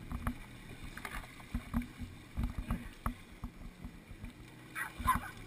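Water slapping against the hull of a jet ski sitting in the water, irregular dull knocks, with a louder knock near the end.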